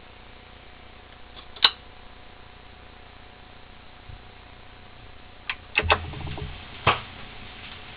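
Surface noise from a vinyl 45 single before the music begins: a steady faint hiss broken by a few sharp clicks and pops, with a dull low thump and a cluster of clicks about six seconds in.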